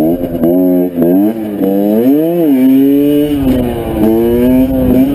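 Dirt bike engine revving up and down several times as the bike rides, with one longer rise and fall in pitch about two seconds in.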